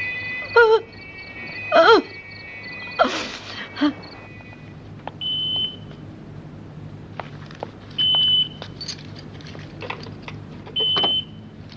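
A woman sobbing in several short, wavering cries. Then a car telephone rings with three short electronic beeps about three seconds apart, with faint clicks of a hand at the car door in between.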